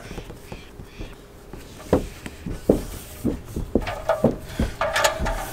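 Hands pressing and rubbing Eternabond sealing tape down onto a trailer roof around a solar panel mounting bracket, working it into the creases: soft, irregular taps and rubs.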